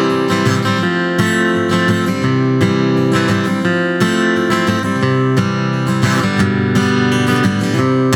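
Acoustic guitar strummed in a steady rhythm, the instrumental intro of a country-style love song before the vocals come in.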